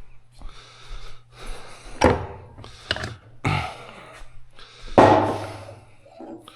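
Transmission parts and tools being handled and set down on a workbench: a series of knocks and clunks, four sharper ones, the loudest about five seconds in, over a steady low hum.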